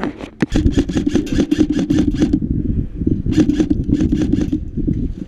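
Airsoft electric rifle (AEG) firing full-auto: a burst of rapid clicking shots over a buzzing gearbox hum, lasting about two seconds, then a pause and a second, shorter burst.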